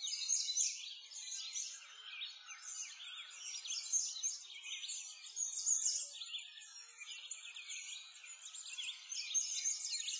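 A dense chorus of birds chirping, many quick high calls overlapping one another.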